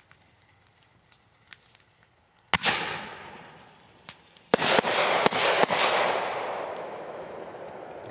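Consumer fireworks going off: one sharp bang about two and a half seconds in, then a quick run of four or five bangs two seconds later, each followed by a hissing trail that fades slowly.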